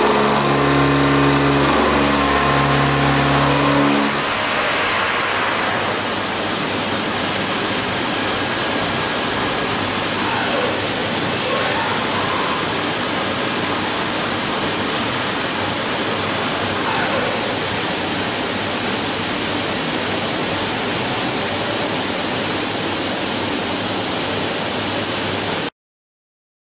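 Horizontal milling machine pocket-milling a metal block: a loud pitched machining hum with a couple of short breaks. About four seconds in, the cutting tone stops and a steady rushing noise from the machine carries on until the sound cuts off abruptly near the end.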